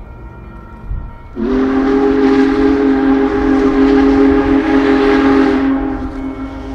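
Union Pacific Big Boy 4014 steam locomotive's whistle sounding one long blast of about four seconds, starting about a second and a half in: a chord of several steady tones with a breathy steam hiss, sliding briefly up to pitch as it opens.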